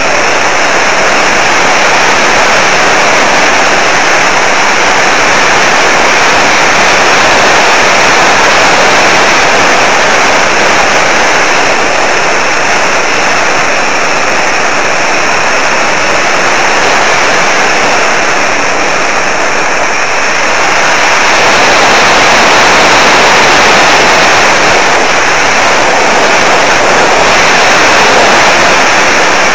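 Steady, loud rush of airflow over the microphone of a camera aboard a flying electric RC model plane, with no clear motor whine. It swells slightly about two-thirds of the way through.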